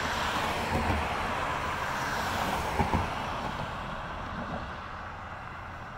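Road traffic: a car driving past and away, its tyre and engine noise slowly fading, with two brief low thumps about one and three seconds in.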